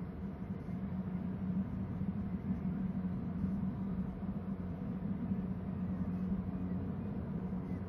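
A steady low hum over an even hiss of background noise, with no distinct call standing out.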